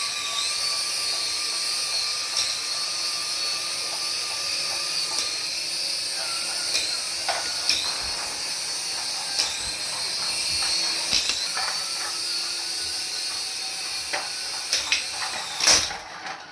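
Small electric motor of a remote-control toy spinning up and running with a steady high-pitched whine, with scattered clicks and knocks, cutting off suddenly near the end.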